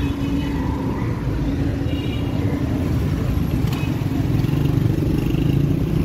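Small motorcycle engine running at low speed, a steady rumble that grows slightly louder in the second half.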